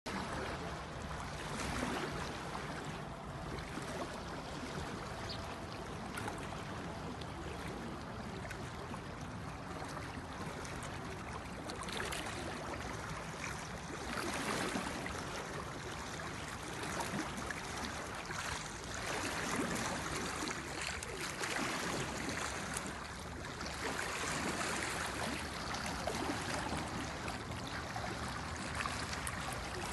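Small waves lapping against a rocky lakeshore: a steady wash of water noise that swells louder several times.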